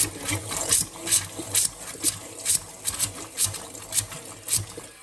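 Wrench being worked in short repeated strokes, about two a second, tightening a new electric water heater element into the tank.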